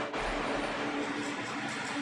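Steady background hiss with a faint low hum, like a fan or computer running in a small room, and no distinct events.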